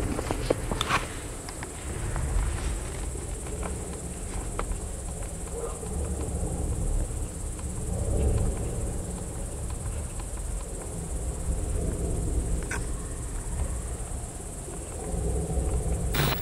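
Crickets chirping in a steady high-pitched drone, over a low uneven rumble and a few scattered clicks.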